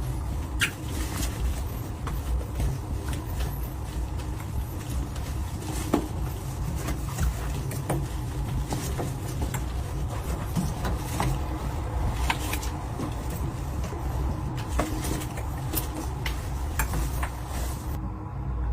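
Light taps and clicks of household objects being handled and set down, scattered irregularly over a steady low hum.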